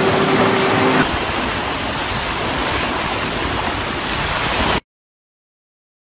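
Steady rushing noise of surf on a sandy beach, with a steady hum over it for about the first second. It cuts off suddenly a little before five seconds in.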